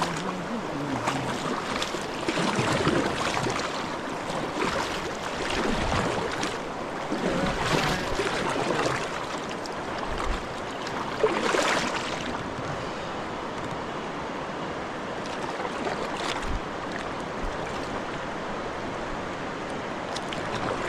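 Fast-moving river current rushing around a kayak hull, with kayak paddle strokes dipping and splashing at irregular intervals every few seconds.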